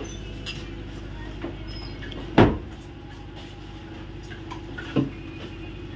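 Steady low drone of a ship's machinery heard through the mess room. A loud knock comes about two and a half seconds in and a smaller one near the end, like a cupboard, lid or pot being knocked.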